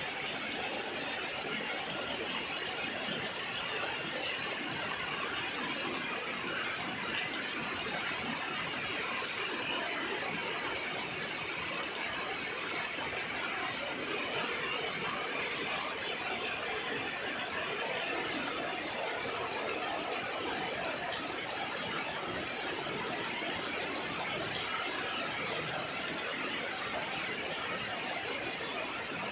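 Heavy rain falling steadily on shrubs, paving and clay water jars: an even, unbroken hiss of falling and splashing water.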